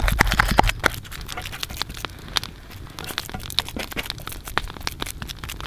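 Wood campfire crackling with a dense run of small sharp snaps and pops, busiest and loudest in the first second, then sparser.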